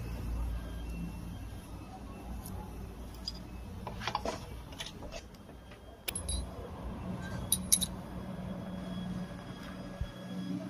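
Metal parts of a diesel injection pump being handled and taken apart: a few sharp metallic clicks and clinks, the clearest about four, six and seven and a half seconds in, over a steady low hum.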